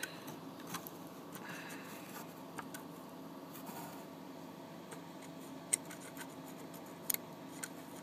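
Small metal file scraping gently back and forth between the contacts of an old garage door opener's magnetic relay, filing dirt off the contact surfaces. A few sharp small clicks stand out, the loudest about two-thirds of the way through and another a little later.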